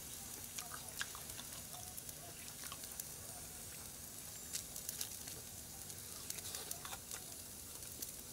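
Faint sizzling and crackling of shashlik on a skewer over hot charcoal, with scattered sharp pops.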